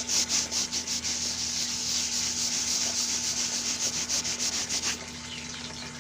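A sponge scrubbing back and forth over a stain on a hard surface: quick rhythmic strokes that run into steady scrubbing and stop abruptly about five seconds in. A faint steady low hum continues underneath.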